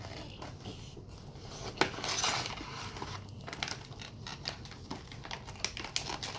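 Plastic snack packaging being handled and opened: scattered light clicks and crinkles, with a sharp click about two seconds in followed by a brief rustle.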